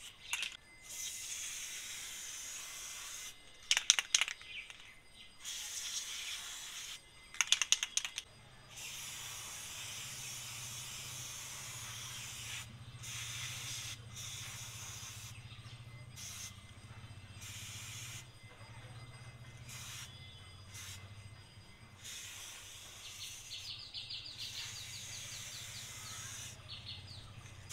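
Aerosol chain-cleaner spray hissing in many short bursts onto a motorcycle's drive chain, stopping and starting. Two quick runs of sharp clicks stand out about four and seven seconds in, and a low steady hum sits underneath from about eight seconds on.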